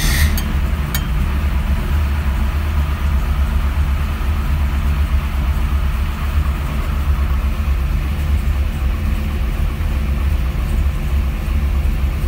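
1965 Dodge Coronet altered-wheelbase car's engine idling steadily just after a cold start, a loud, deep, pulsing rumble heard from inside the cabin.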